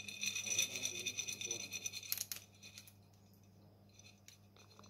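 Pumpkin seeds shaken out of a packet onto bread dough in a loaf tin: a dense rattle of seeds for about two seconds, then a few light ticks.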